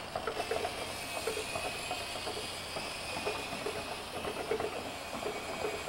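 A steady hiss with a faint high whine in it, cutting off abruptly, over a faint low hum.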